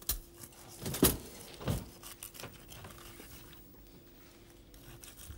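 Carving knife and fork working on a roast chicken: a few clinks and scrapes of metal on the bird and plate in the first two and a half seconds, the loudest about a second in, then quieter.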